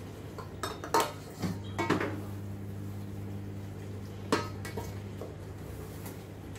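A measuring cup knocking and clinking against a stainless steel stand-mixer bowl while flour is scooped and poured in: a handful of sharp knocks, the loudest about a second in, near two seconds and a little after four seconds.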